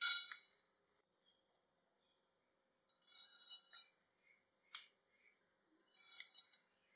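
Whole spices poured from a metal spoon into a dry non-stick pan: black peppercorns rattle in at the start, cumin seeds patter in about three seconds later, and fennel seeds near the end, with a single sharp click in between.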